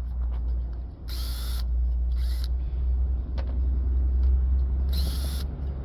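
Metal being pried and pulled apart while dismantling an air-conditioner coil: three short scraping rasps, over a steady low rumble.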